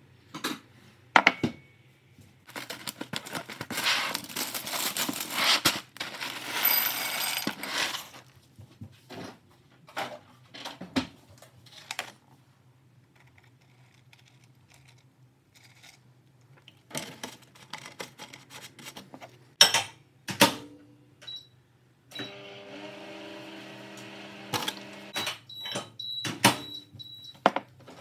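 Breakfast cereal being made at a kitchen counter: dry Cheerios poured rattling into a ceramic bowl, then milk poured in, with clinks and knocks of the bowl, carton and spoon. Near the end a steady hum sets in, with a few short high beeps.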